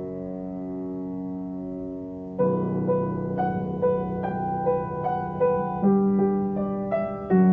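Background piano music: a held chord, then from about two and a half seconds in a slow melody of struck notes over sustained low tones.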